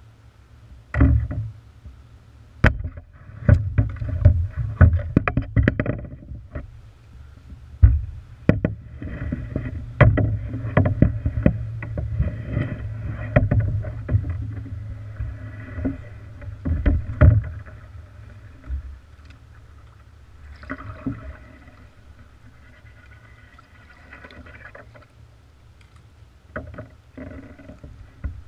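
Kayak paddle strokes: the blades dip and splash in the water, with many sharp knocks and clunks from about a second in. The paddling eases off after about 18 seconds, with lighter splashes and a few knocks near the end.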